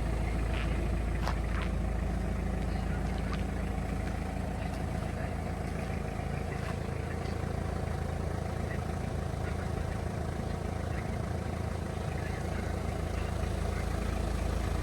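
Toyota Land Cruiser Prado LJ78G's diesel engine running steadily, a low hum, with a few faint clicks in the first couple of seconds.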